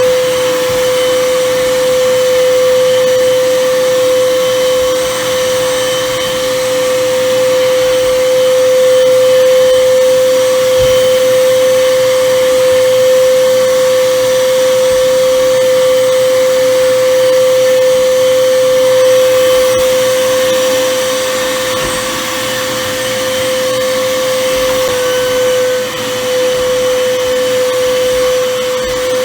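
Corded handheld vacuum cleaner switching on and running steadily, its motor whine holding one pitch over a rush of air, dipping slightly in pitch near the end.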